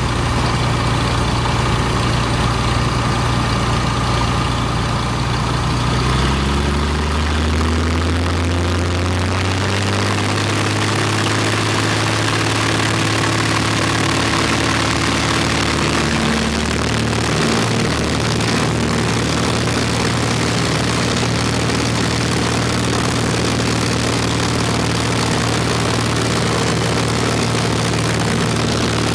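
A 1961 Cessna L-19E Bird Dog's six-cylinder Continental O-470 engine and propeller running at low power, then throttled up for takeoff about six seconds in, the pitch rising over a few seconds and then holding steady at full power.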